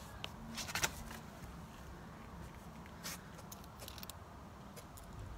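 Faint scattered light clicks and taps over a low steady hum.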